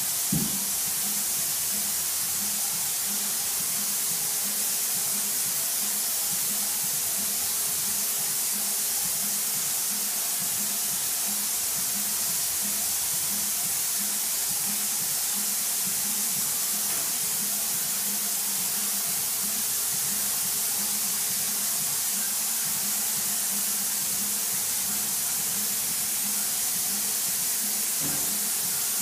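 Airless spray gun from a Graco Ultra Max II 695 electric piston-pump sprayer spraying paint in a steady high-pressure hiss, with a low regular pulsing underneath from the pump. A brief sharp click sounds just after the start.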